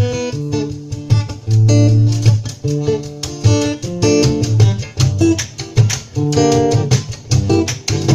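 Guitar music: an instrumental passage of quick plucked and strummed notes over low bass notes.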